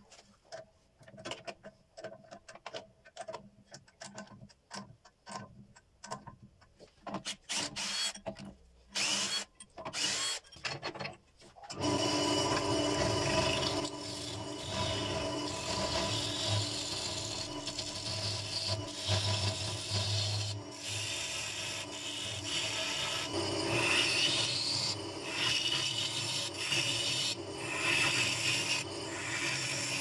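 Scattered clicks and knocks of a chuck key tightening a lathe chuck on a bird cherry blank. About twelve seconds in, the wood lathe starts and a gouge cuts the spinning end-grain face, a steady scraping of wood over the motor's hum that runs on continuously.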